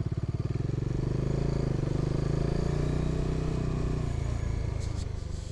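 Motorcycle engine running at low road speed, its pitch rising a little and then easing off, fading out near the end.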